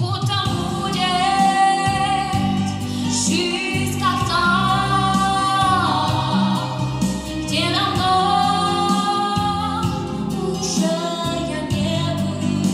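A girl sings a slow pop song into a handheld microphone over instrumental accompaniment, holding long notes.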